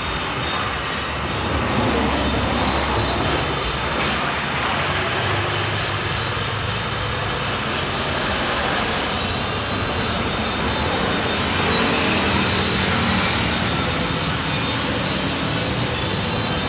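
A machine or power tool running steadily for the whole stretch, a dense even noise with no breaks.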